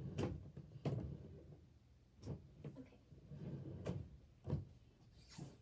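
About six soft, irregular knocks and thumps with low rustling between them, the sounds of a person moving about and handling things close to the microphone.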